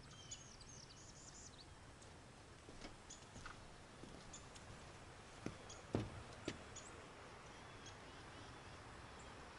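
Faint steady rush of a river far below, with a few short high bird chirps about a second in and a few soft clicks near the middle.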